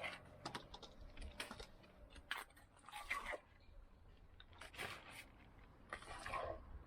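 Scattered clicks, taps and short scrapes of objects being handled, with the loudest sounds about three seconds in and near the end.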